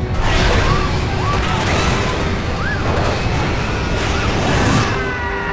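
Film sound effects of an airliner cabin ripping open in flight: a sudden loud rush of air and flying debris, with passengers screaming in short rising-and-falling cries.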